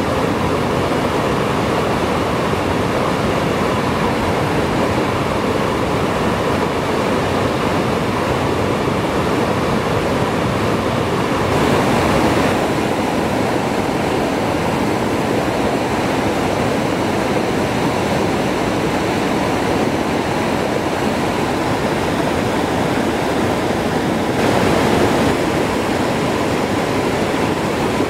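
Waterfall running high with spring snowmelt: a steady, loud rush of falling and churning water. It swells briefly twice, about twelve seconds in and again near the end.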